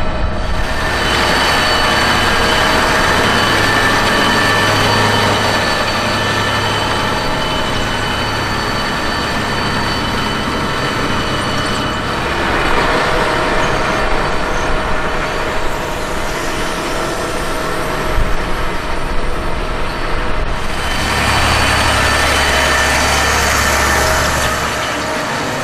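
John Deere 8370RT tracked tractor's diesel engine running steadily under ploughing load, with a steady whine over the engine noise; the sound shifts a couple of times as the view changes.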